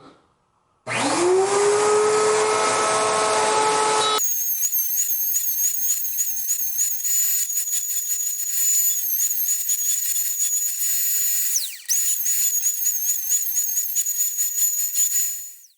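An electric router motor spins up to a steady whine. About four seconds in, the sound cuts abruptly to a higher-pitched power-tool whine whose pitch wavers, drops and recovers near twelve seconds, and stops at the end.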